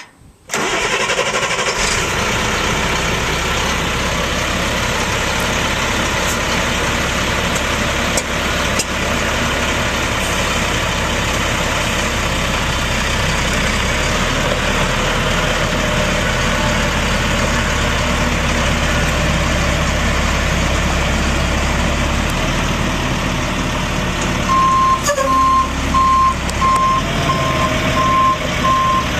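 2005 Ford F-650 diesel engine starting about half a second in and then idling steadily. From about 24 seconds in, the truck's reversing alarm beeps at an even pace over the engine, which means it is in reverse.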